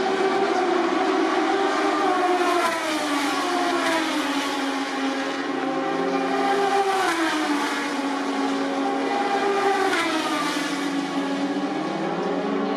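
Moto2 race bikes' Triumph 765 cc three-cylinder engines running at speed on track, their engine notes dropping in pitch three times a few seconds apart and climbing again near the end.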